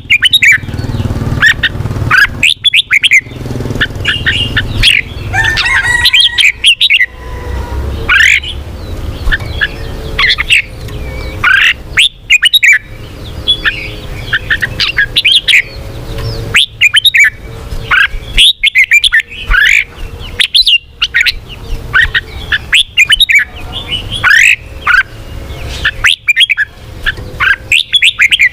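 Red-whiskered bulbul singing: quick phrases of short, sweeping whistled notes that rise and fall, following one another with only brief pauses, over a low steady rumble.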